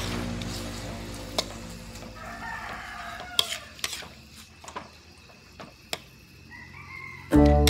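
Shrimp and vegetables frying in a steel wok, the sizzle dying down, while a metal spatula scrapes and clinks against the pan several times. A rooster crows in the background around the middle, and guitar music comes in just before the end.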